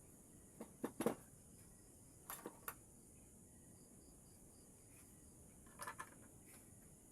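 Light clicks and knocks in three short clusters, the loudest about a second in, others about two and a half seconds in and near six seconds, over a faint steady hiss.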